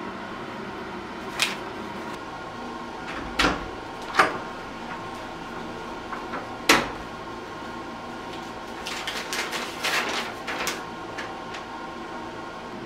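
A room door opening and knocking shut: several sharp clicks and knocks of the latch and door over the first seven seconds. Then a sheet of paper is unfolded and handled, rustling for about two seconds, over a steady background hum.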